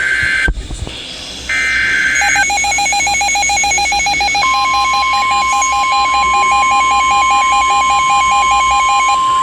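Emergency Alert System tones. The last of three screeching digital header bursts comes first, then a fast-pulsing electronic alert tone. From about four and a half seconds in, the steady one-pitch NOAA Weather Radio warning alarm tone joins it, marking the start of a new warning. A brief low thump sounds about half a second in.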